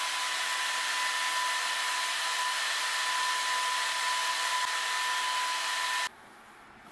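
Steady rushing of an electric blower motor with a high whine, cutting off abruptly about six seconds in.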